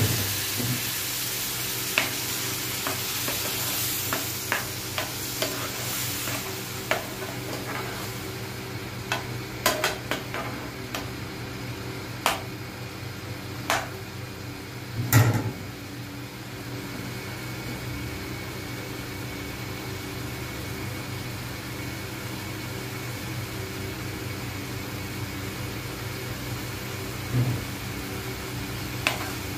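Onion-tomato masala sizzling in a frying pan after a splash of water was added, the sizzle strongest in the first few seconds. A metal spatula scrapes and knocks against the pan now and then, loudest about halfway through, over a steady low hum.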